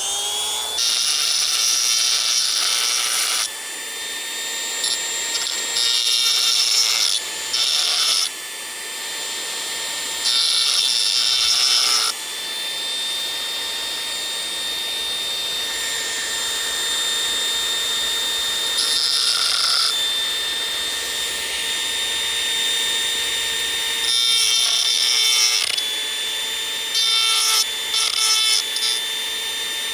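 A small high-speed power tool motor runs steadily. It bears on the work in louder spells of one to three seconds, five or six times.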